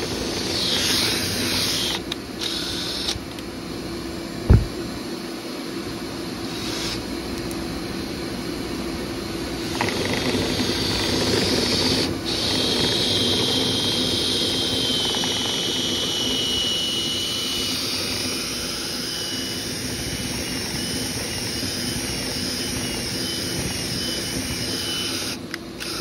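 Dryer vent cleaning equipment running steadily: a motor's whirring noise with a high whine that comes in about twelve seconds in and wavers. A single sharp knock comes about four and a half seconds in.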